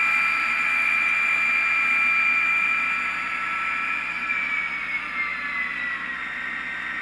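HO-scale SD40-2 model diesel locomotive running under DCC sound, its decoder playing diesel engine sound through the model's small onboard speaker as a steady high whine. Over the last few seconds the pitch slides down and the sound eases off as the model slows.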